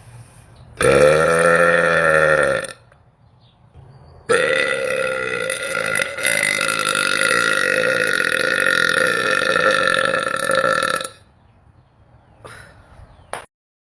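Two loud, drawn-out burps from a woman. The first comes about a second in and lasts about two seconds, its pitch wavering. The second starts about four seconds in and is held at a steady pitch for about seven seconds.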